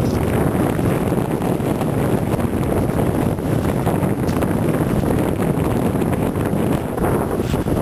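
Wind buffeting the microphone on the deck of a sailboat under sail: a loud, steady low rumble with no breaks.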